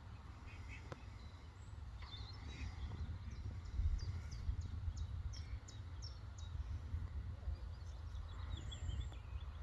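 Outdoor ambience: a low, uneven rumble of wind on the microphone, with a small bird chirping in a quick run of short high notes about four seconds in and again near the end.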